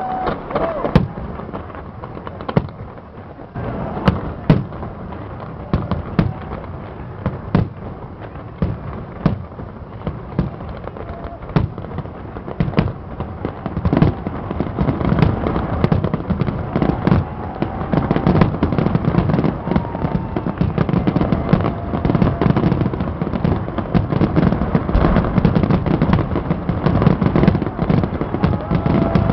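Fireworks display: sharp bangs of bursting shells, about one a second at first, building about halfway into a dense, nearly continuous barrage.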